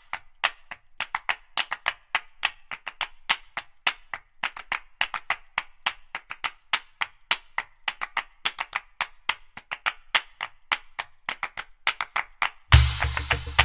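Felt-tip marker tip tapping dots onto sketchbook paper: quick, irregular sharp taps, several a second. Near the end, music with a bass beat starts suddenly and is louder.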